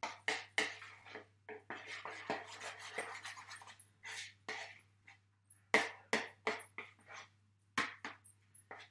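Cream being beaten by hand with a utensil in a ceramic bowl: a run of quick scraping, clinking strokes against the bowl, about three to five a second, in uneven runs with a pause around the middle.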